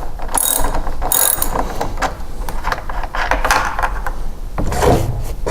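Ratchet socket wrench with a 9/16 socket clicking and rasping in short strokes while loosening a mower wheel bolt counterclockwise.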